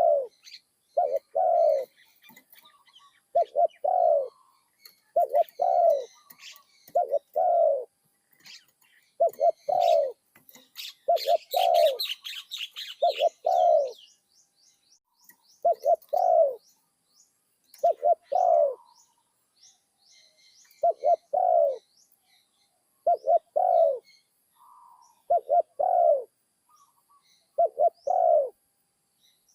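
Spotted dove cooing over and over, short low coos about every two seconds, some in quick pairs: a new bird being trained to call. Small birds chirp faintly in the background, most busily about ten to fourteen seconds in.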